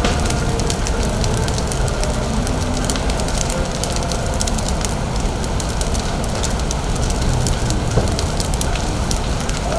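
A burning auto repair shop, fully engulfed: dense irregular crackling and popping over a steady low rumble.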